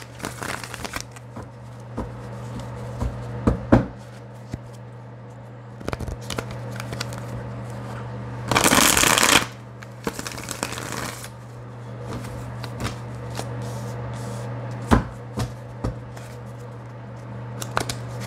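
Tarot deck being shuffled by hand: scattered taps and card clicks, with a longer, louder stretch of shuffling about nine seconds in and another just after. A steady low hum runs underneath.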